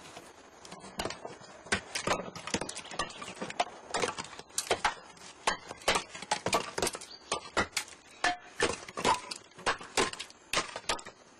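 Pieces of split firewood knocking and clattering against each other: a rapid, uneven run of sharp wooden knocks, two to four a second, starting about a second in.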